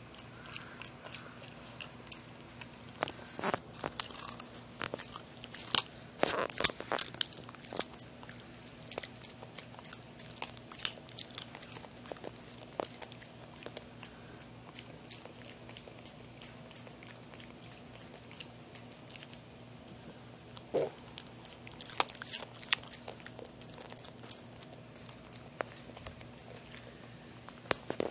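Boston terrier crunching and chewing a raw carrot: irregular crisp crunches and bites, with louder flurries a few seconds in and again after about twenty seconds.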